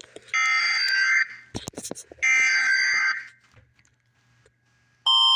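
Emergency alert broadcast tones: two buzzy data bursts of about a second each, a second apart, like EAS digital header codes. Near the end the Canadian Alert Ready attention signal starts abruptly, its tones alternating about twice a second.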